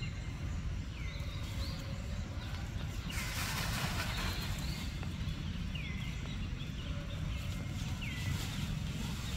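A short, high animal call that sweeps down in pitch, repeated about every second and a half, over a steady low background rumble.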